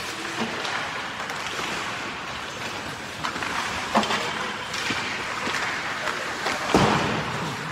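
Ice hockey rink ambience: skate blades scraping and hissing on the ice over a steady wash of rink noise, with a few sharp clacks of sticks and puck, the loudest near the end.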